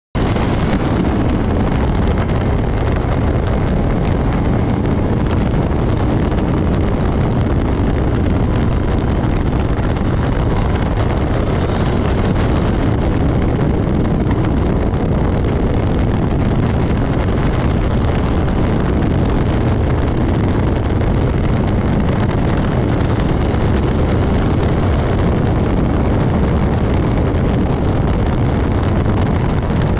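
Motorcycle engine running at a steady cruise while riding, mixed with heavy wind noise on the microphone; the level stays even throughout.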